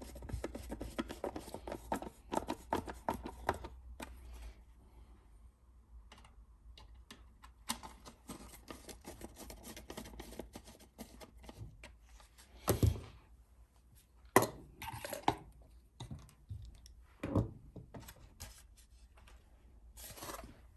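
Small screws and plastic wing-mirror indicator housings being handled and screwed, mostly light clicks and ticks. There is a dense run of rapid clicks over the first few seconds, then scattered ticks, with a few louder knocks later on.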